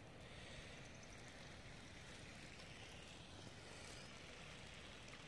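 Near silence: faint outdoor ambience with a low rumble and a soft hiss.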